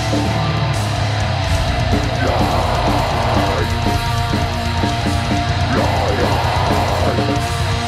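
Metal band playing live: electric guitar and drum kit, with vocals from a singer on a handheld microphone.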